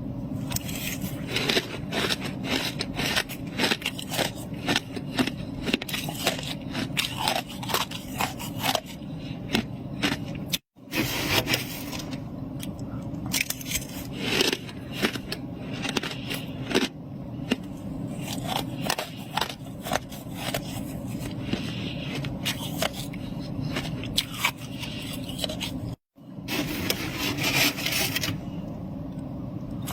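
Freezer frost being scraped and crunched close to the microphone: a dense, irregular run of crisp, squeaky crunches, broken twice by brief drops to silence.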